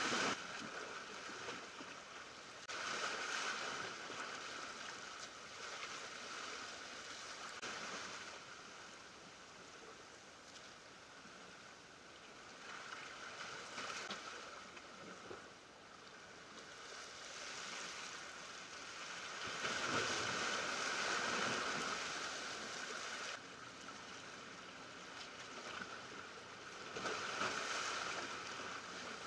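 Small waves washing in against the shoreline rocks and draining back, a surge every few seconds; the longest and loudest surge comes about two-thirds of the way through.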